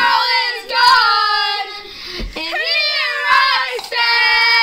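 A child singing unaccompanied, holding long notes, with a long held note near the end.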